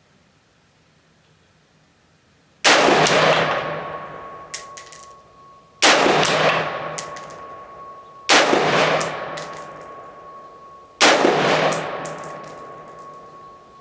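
Radical Firearms RF-15 AR-15-style rifle fired four times in slow succession, a few seconds apart. Each loud shot echoes and dies away over about two seconds.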